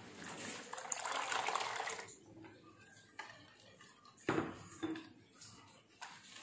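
Water poured from a glass into a bowl of yogurt and gram-flour batter, a steady splashing pour for about two seconds. Then a few sharp knocks as the wire whisk strikes the bowl, the loudest about four seconds in.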